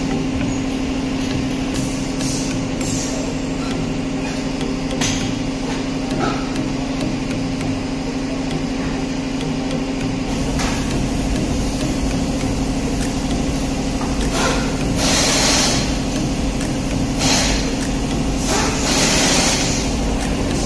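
Workshop machine noise: a steady mechanical hum, with a few sharp metal clicks and knocks from work on the truck's wheels, and three short hissing bursts near the end.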